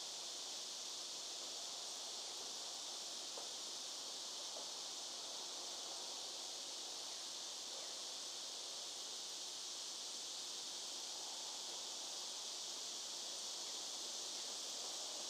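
A steady, high-pitched insect chorus, with a few faint scrapes from a hand carving chisel cutting into a wooden cane stem.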